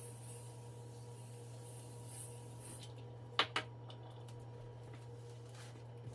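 Aerosol can of Pledge furniture polish spraying in a faint hiss for about three seconds, then two sharp knocks about half a second apart, over a steady low hum.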